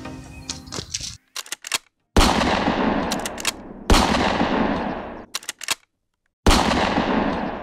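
Three shots from an Uberti Cattleman 2, a single-action revolver in .45 Long Colt, each a sharp blast that rings out into a long fading echo, with clusters of quick clicks before the shots. The end of an intro music track fades out in the first second.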